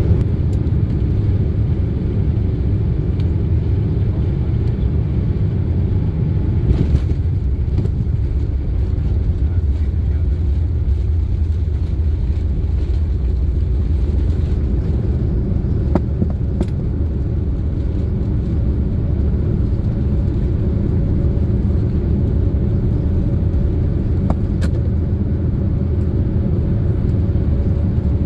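Boeing 787-9 on its landing rollout, heard from inside the cabin: a steady, loud, low rumble of the engines and the wheels on the runway as the jet slows. A few brief knocks sound over it, the strongest about seven seconds in.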